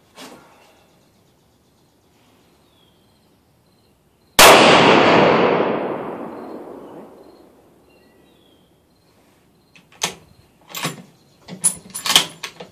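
A single rifle shot from a Weatherby Vanguard bolt-action in .257 Weatherby Magnum, sudden and loud, with a long echoing tail that fades over about three seconds. About ten seconds in come several sharp metallic clicks and clacks as the bolt is worked.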